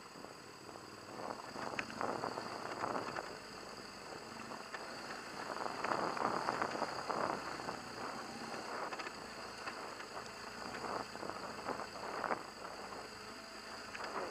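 Riding noise from a BMW HP2 Enduro motorcycle on a rough dirt track: a steady rush of wind with irregular knocks and rattles as the bike jolts over the ruts, louder about two seconds in and again around six seconds.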